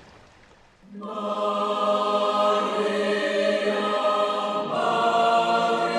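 Background music: a choir singing long held chords. It enters after about a second of near silence and shifts to a new chord near the five-second mark.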